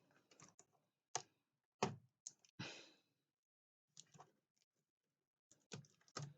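Faint, scattered clicks and taps from laptop parts being handled during disassembly, with one short breathy sound near the middle.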